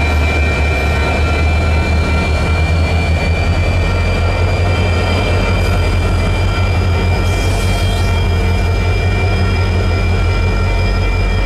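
Union Pacific freight train rolling past a grade crossing: a steady, loud rumble of wheels on rail. Thin high tones ring over it, one rising slightly in the first few seconds.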